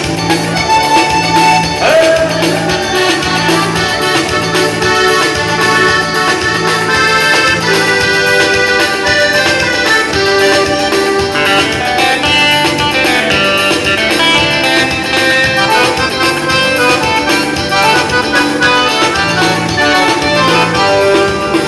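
Live dance band playing accordion-led music over a steady repeating bass beat.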